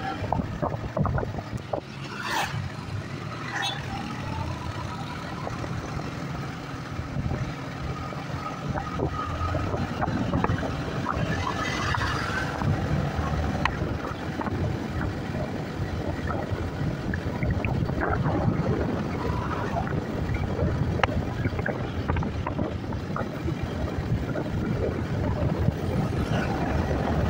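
Yamaha motor scooter's engine running at riding speed, heard from the rider's seat with rushing wind noise over it. The sound is continuous and grows slightly louder towards the end.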